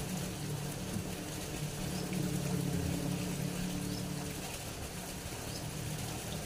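A small engine running steadily with a low hum, easing off a little after about four seconds, with a few faint high chirps.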